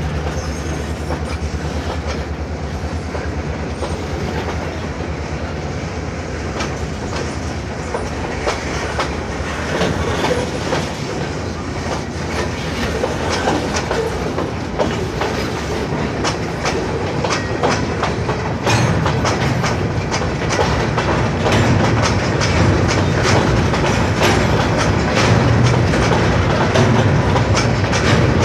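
Freight cars rolling past close by, their steel wheels clacking over the rail joints and the grade crossing. The rumble gets louder about two-thirds of the way in.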